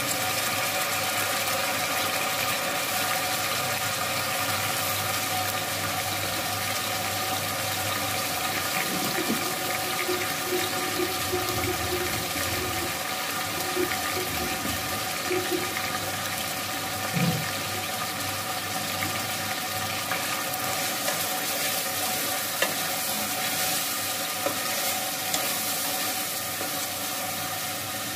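Bone-in meat and potato chunks frying in oil in an aluminium pot, a steady sizzle with a few light clinks, over a steady hum.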